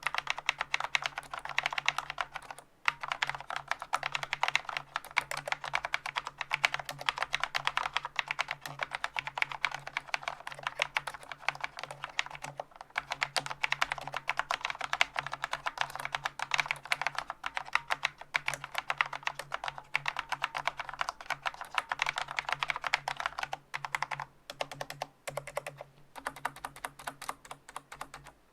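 Fast, continuous typing on a Corsair K70 MK.2 Low Profile mechanical keyboard with Cherry MX Low Profile Speed (silver) linear switches, dense key clacks with brief pauses about three seconds in and twice near the end. The switches are unlubricated, so some spring ping comes through.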